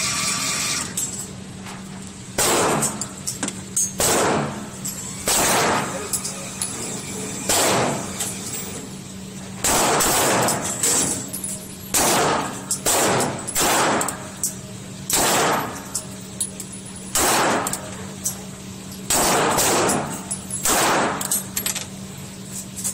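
Handgun shots fired one at a time on an indoor range, about fifteen of them, spaced irregularly a second or two apart, each with a short echo off the range walls. A steady low hum runs underneath.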